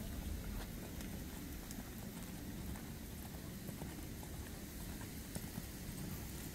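A horse's hoofbeats falling on the soft sand of an arena at a lope, as scattered faint knocks over a steady low rumble.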